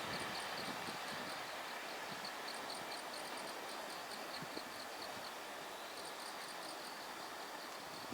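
Night insects chirping in quick high-pitched pulse trains, stopping and starting again every second or two. Beneath them runs the faint, fading noise of a freight train moving away.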